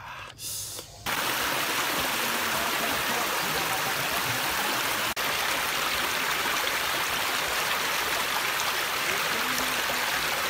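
Shallow stream rushing and splashing over rocks, a steady hiss of water that cuts in abruptly about a second in.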